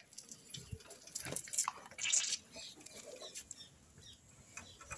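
Ripe tomatoes being crushed under a car tyre: faint wet squelches and small pops, loudest about two seconds in.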